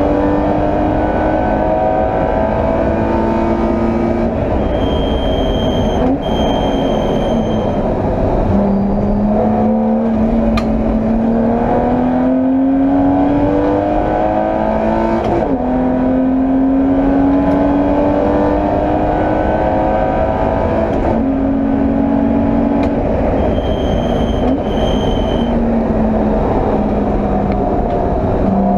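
BMW E30 325i straight-six racing engine heard from inside the car, pulling hard with its pitch climbing, then dropping at each gear change about every five seconds. Two short high electronic beeps sound twice, about six seconds in and again near the end.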